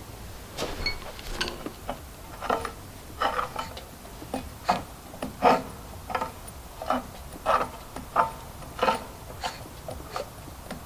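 The flywheel of a 125cc two-stroke scooter engine being turned by hand and scratching against something inside, a short scrape about every two-thirds of a second. The rubbing comes from something caught inside the flywheel, which the owner thinks was probably a rock.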